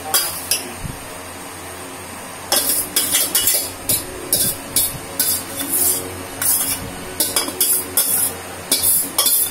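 A metal spoon stirring in ceramic bowls of papaya pieces in syrup, clinking and scraping against the bowl sides in a quick, irregular run of clinks from about two and a half seconds in.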